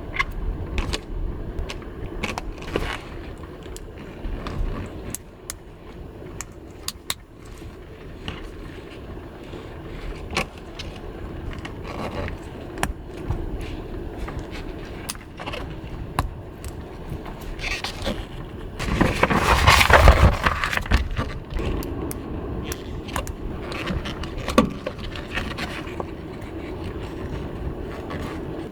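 Gusty wind rumbling around the car, with scattered small clicks and clinks and a stronger surge about two-thirds of the way through.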